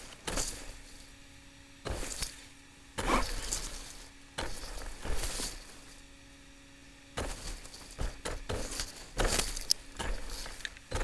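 Tall grass stalks rustling and scraping against an RC car and its onboard camera as the car pushes through, in irregular swishes that bunch together near the start, in the middle and later on. A faint steady hum runs underneath.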